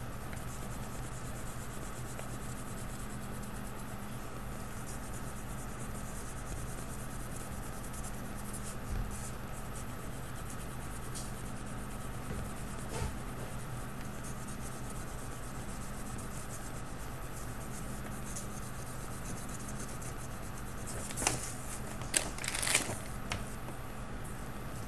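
Pen rubbing and scratching faintly on paper as lines are drawn, over a steady electrical hum. A few louder scrapes come close together near the end.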